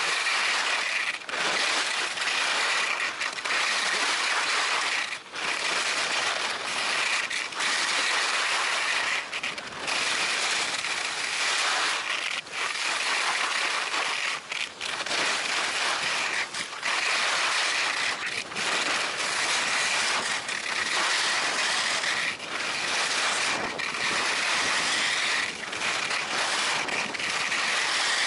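Alpine skis sliding and carving over packed snow on a downhill run: a steady rushing hiss that eases briefly every second or two.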